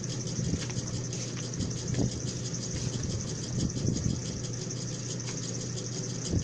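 A steady low motor hum, with a few soft clicks and scrapes of a plastic spoon stirring food in a takeout container.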